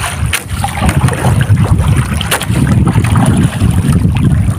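Wind buffeting the microphone as a loud, uneven low rumble, with a few sharp clicks from the fishing hook and line being handled.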